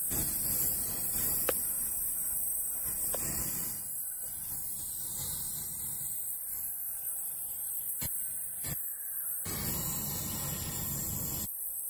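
Brazing torch flame hissing steadily while a copper refrigerant line is brazed at a filter drier, with a few sharp clicks and two brief faint squeaks.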